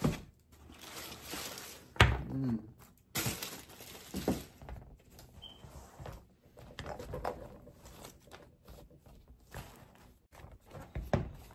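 Tissue paper rustling and crinkling as sneakers are lifted from their cardboard box and handled, with a few knocks of shoes and box on a wooden table, the sharpest about two seconds in.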